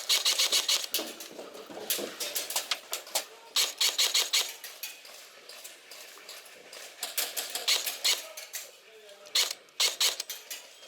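Airsoft guns firing in rapid bursts. There are about five bursts of fast clicks: one at the start, then around two, four, seven to eight, and nine and a half seconds.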